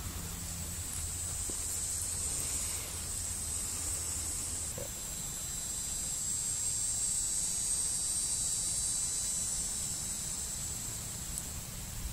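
Insects droning steadily at a high pitch, swelling louder through the middle, over a low rumble.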